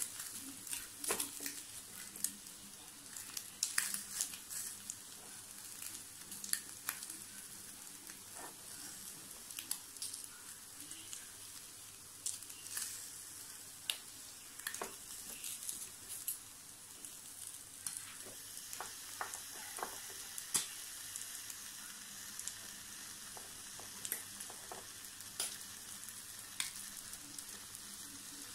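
Pork ribs sizzling on a hot electric grill plate as teriyaki sauce is brushed onto them: a steady hiss with frequent small crackles and pops.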